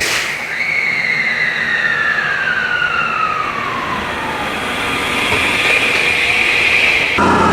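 An electric train's air-compressor drain valve blowing off in one sharp hissing 'shupan!' burst, releasing the moisture collected while the compressor was pumping. A whine then falls steadily in pitch over about four seconds, and near the end there is an abrupt change to a different, louder train sound.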